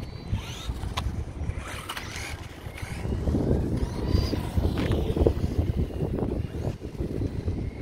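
Wind buffeting the microphone, louder from about three seconds in, over the faint whine of two brushless RC cars' electric motors rising and falling in pitch as they are driven in the distance.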